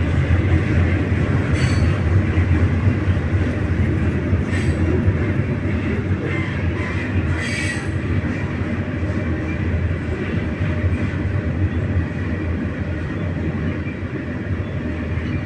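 Freight train cars rolling past at close range: a steady low rumble of steel wheels on rail. Three brief high metallic squeals from the wheels come in the first half.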